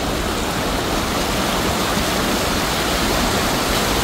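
Steady rush and splash of floodwater as a car drives through a flooded road, its wheels pushing a wake of water along its side.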